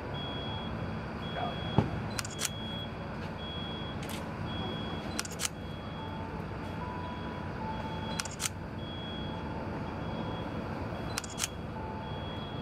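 Camera shutter clicks every few seconds, some as quick double clicks. Under them runs the steady hum of the large mobile crane's engine, with a faint, high, repeated beeping.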